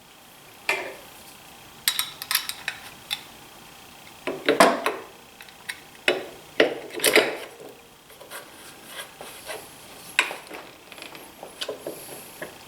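Irregular metal clicks, clanks and scraping of parts and tools being handled as the handle and covers are fitted back onto a DeWalt 735 thickness planer, with a few louder knocks about midway.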